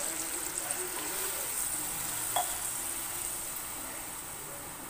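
Water poured into hot oil and spice paste in a steel kadhai, the oil sizzling and spitting as the water hits it. The hiss gradually dies down as the water takes over and the pan settles.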